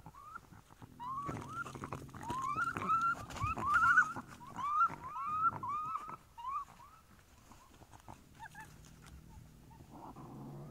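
A fast run of short, high yipping barks, about three or four a second, each rising in pitch. They start about a second in and stop around seven seconds, with a few knocks and a low rumble underneath.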